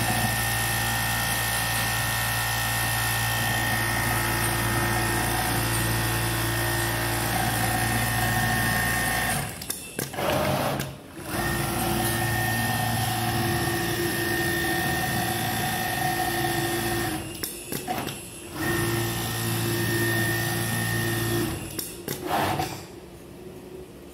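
Industrial rotating-head template sewing machine running at speed with a steady hum. It stops briefly about ten seconds in and again about seventeen seconds in, then runs on and drops much quieter near the end.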